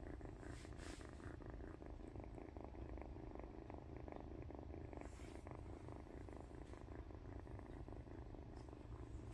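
Kitten purring softly and steadily while being stroked on the head, a continuous low, finely pulsing purr.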